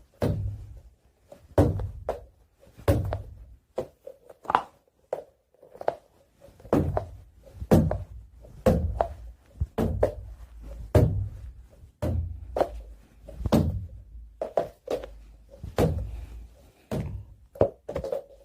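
Sticky fidget ball striking a hard surface over and over with dull thunks, roughly one a second at an uneven pace.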